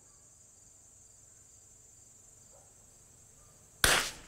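Faint steady chirring of crickets, then about four seconds in a single sharp .22 LR rifle shot that dies away quickly.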